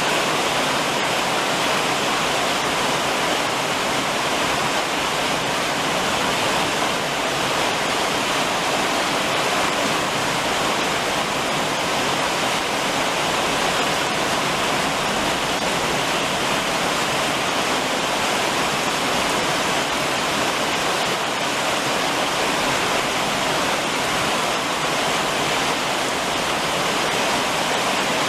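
Summer rain falling steadily on a roof, a dense even rush of water with no let-up.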